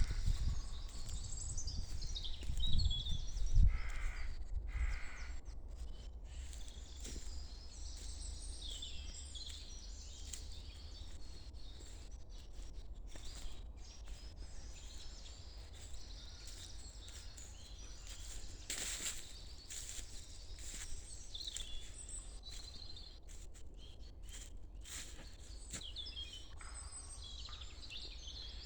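Many small songbirds chirping and trilling over one another, with a steady low rumble underneath and a few dull thumps in the first few seconds.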